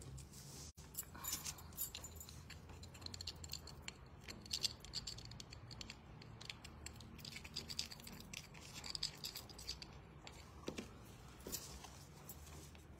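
A wooden popsicle stick stirring metallic powder into a liquid medium in a small plastic dish: faint, repeated scraping and light ticking against the dish.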